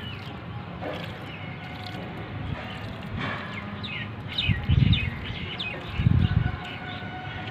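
A bird chirping: a quick run of short high calls about three to five seconds in, over a steady outdoor background. Two loud low rumbles come about halfway through and again a second or so later.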